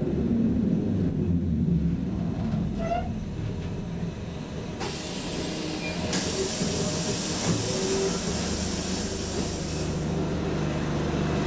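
Lidingöbanan A30B tram coming to a stop: the low running hum dies away, and about five seconds in a loud hiss of compressed air starts and runs for about four seconds before the hum returns.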